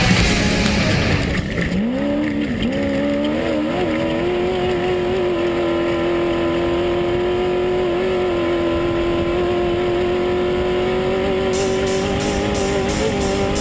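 Heavy metal music cuts out about a second and a half in, giving way to an unlimited Class 1 off-road race buggy's engine climbing in revs and then holding steady at high revs, with small dips.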